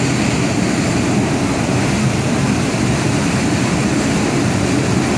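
Water gushing out of a dam's open outlet gate in a powerful jet, a loud, steady rush with a deep rumble underneath.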